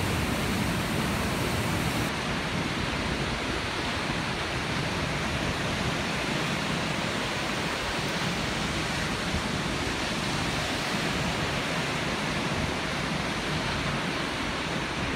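Steady rushing roar of a waterfall, even and unbroken.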